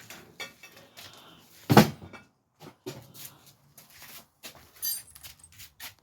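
Irregular clatter of objects being handled and set down, a series of knocks and clicks with one loud thump about two seconds in.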